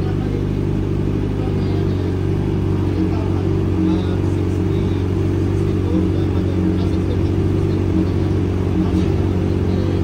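Kawasaki Z1000R's inline-four engine idling steadily through an aftermarket titanium exhaust with a carbon-fibre muffler.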